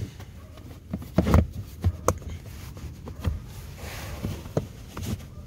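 Scattered knocks, taps and rubbing from a molded all-weather floor mat being handled and worked into a car's driver footwell, with one sharp click about two seconds in.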